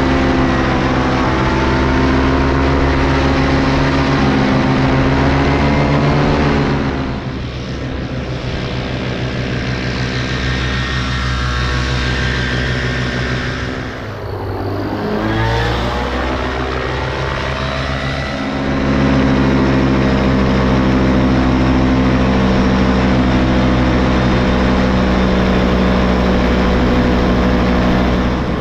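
Paramotor engine and propeller running close by. The engine slows and quietens about a quarter of the way in, dips further with a falling-then-rising pitch around halfway, then comes back up to a strong steady run about two-thirds in.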